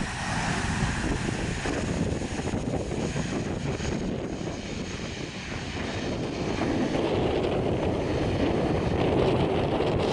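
Airbus A330-200 jet airliner landing: a steady, noisy engine rumble that swells louder about two-thirds of the way through.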